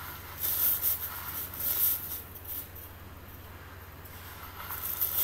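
Crushed jaggery being scraped and pushed by hand off a plastic board into a steel pot of water, a rough scraping rasp in a few short spells.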